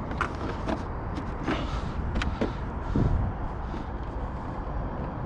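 A scatter of small plastic clicks and knocks as body clips are pushed in to hold the RC car's shell, over a steady low outdoor rumble.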